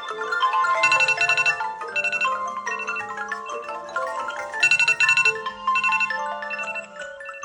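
Smartphone ringtone playing a bright melody of short struck-sounding notes over a low held note, with a run of rapid repeated high notes coming back about every four seconds.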